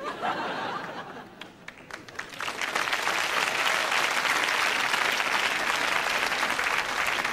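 Crowd applauding, the clapping swelling from about two seconds in and holding steady.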